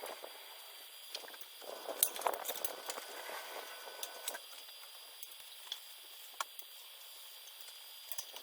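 Scattered light clicks and clinks, busiest about two to four seconds in, over a faint steady high-pitched tone.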